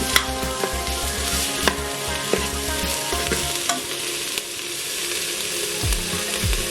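Food sizzling as it fries in hot oil, stirred with a utensil that clicks against the pot a few times in the first half. Background music with a pulsing bass beat plays underneath.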